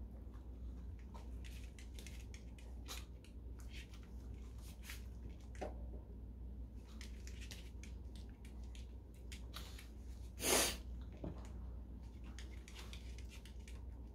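Faint, scattered clicks of a Chihuahua's claws on a laminate floor as it moves about and settles, with one short, louder puff of noise about ten and a half seconds in.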